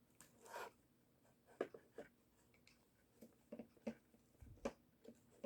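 Faint handling noises: a few scattered light clicks and soft rustles of plastic toy parts and costume fabric as the animatronic's arms are worked back through its costume.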